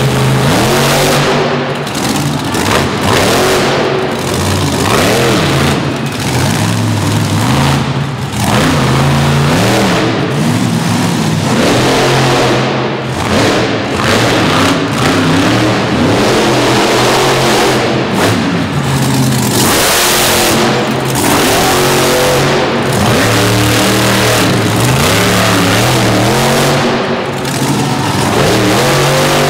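Monster truck engine revving hard and easing off again and again as the truck is driven through its freestyle run, its pitch climbing and dropping many times.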